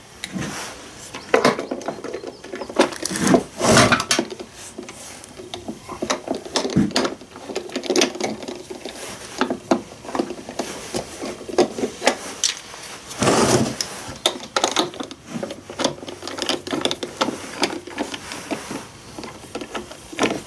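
Hard plastic housing of a battery chainsaw being handled and turned on a wooden workbench: irregular knocks, clicks and rubbing as screws are turned in by hand. The loudest handling knocks come about three to four seconds in, with a longer scrape about thirteen seconds in.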